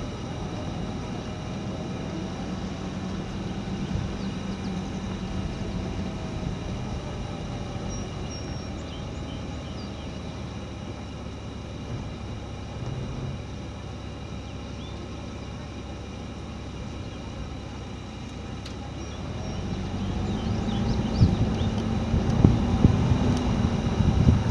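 A steady engine drone. Wind buffeting the microphone grows louder over the last few seconds.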